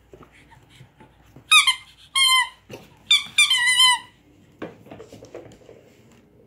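Squeaky dog toy squeaking: four loud, high squeaks in quick succession, the last one longer and wavering, with a couple of light knocks on the floor.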